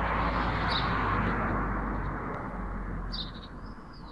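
Light propeller aircraft droning overhead, its engine noise fading from about three seconds in as it flies off. A bird chirps briefly a few times.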